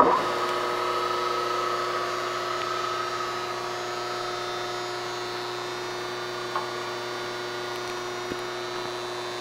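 Chevalier FSG-1228AD surface grinder's spindle switching on with a sudden start. Its 14-inch grinding wheel spins up and then runs with a steady hum, with a higher whine that fades after a few seconds.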